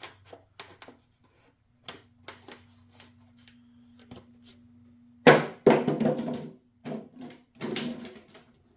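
Hand-handling noises under the hood: scattered clicks and knocks, then a louder stretch of clattering and rustling about five seconds in, and another shorter one near the end.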